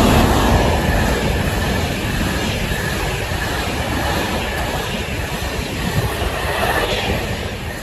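Class 68 diesel locomotive passing with its train: heavy engine rumble and rolling wagons, with a thin high wheel squeal, loudest at the start and slowly fading.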